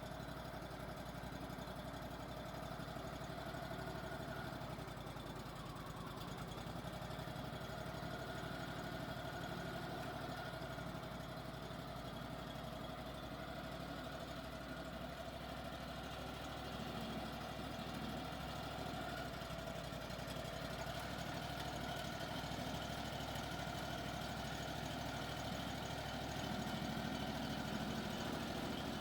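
Portable band sawmill running steadily, its engine holding a constant note with a steady whine above it.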